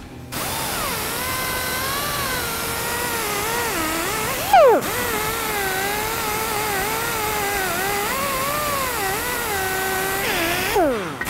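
Air-powered grinder fitted with a wire wheel, brushing scale and oxidation off fresh TIG root-pass welds: a steady high whine whose pitch wavers as the wheel bears on the metal. About four and a half seconds in it stops with a loud burst and falling pitch, then runs up again. Near the end the pitch falls once more.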